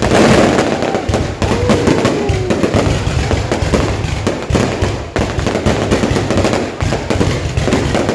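Fireworks going off in a dense, unbroken barrage of rapid crackling bangs.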